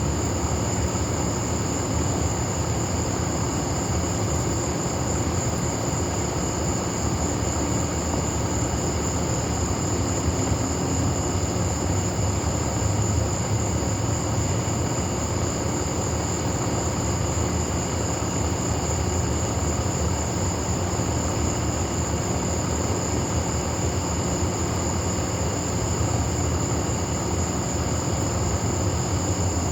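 Night insect chorus, a steady high-pitched trill, over a steady low rumble.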